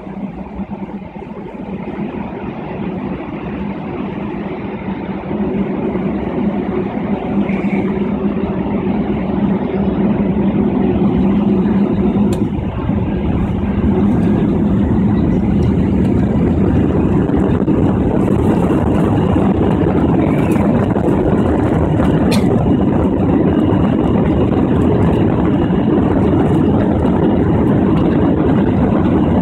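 Jet airliner engines heard from inside the cabin, spooling up to takeoff thrust: the noise grows steadily louder over the first dozen seconds, then holds as a loud, steady rumble as the plane accelerates down the runway. A couple of sharp clicks are heard, one around the middle and one later on.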